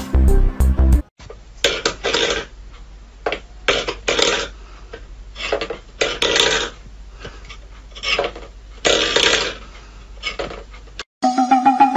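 Steel food bowl pushed and scraped across a wooden floor by a cat's paw, in short rasping scrapes every second or so.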